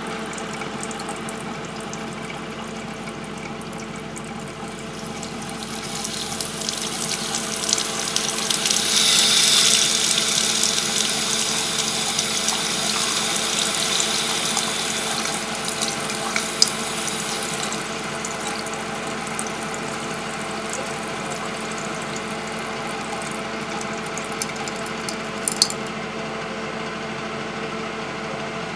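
Water running from a faucet into a sink, splashing onto the drain stopper. The flow swells several seconds in, is loudest around ten seconds and eases off after that, over a steady low hum, with a couple of sharp clicks in the second half.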